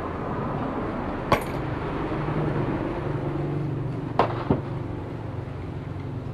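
A steady low mechanical rumble, with three sharp knocks: one about a second in and two in quick succession past the middle.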